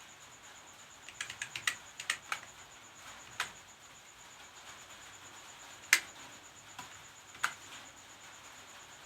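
Computer keyboard keys being typed on: a quick run of keystrokes in the first few seconds, then single key presses a second or more apart, with one loud keystroke about six seconds in.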